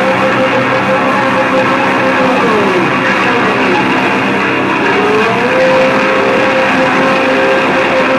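Loud live heavy rock band with distorted electric guitar, one held note sliding down in pitch about two seconds in and climbing back about five seconds in.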